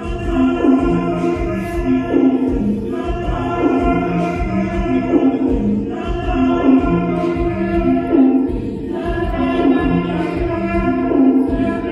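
Live electronic music played on a Novation Circuit groovebox: a steady beat under held chords that change about every three seconds.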